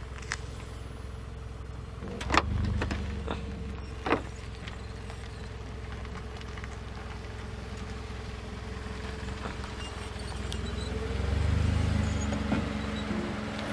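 Engine of a lowered Toyota Camry running at low speed and rising twice under a little throttle as the car creeps over a curb. Sharp knocks about two seconds in and again near four seconds are the low-slung body striking the concrete.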